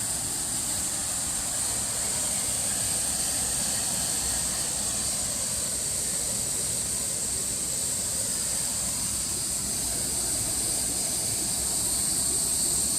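Steady rushing hiss of water falling over a waterfall, even throughout and a little louder near the end.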